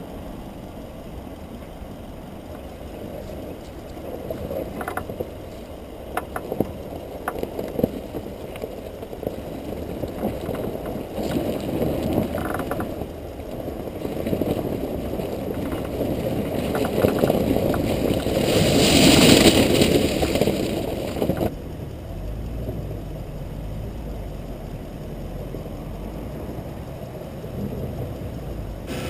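SUV driving over rough off-road ground: low rumble of engine and tyres, with frequent short knocks and rattles from the body. A louder rushing hiss swells past the middle and cuts off abruptly.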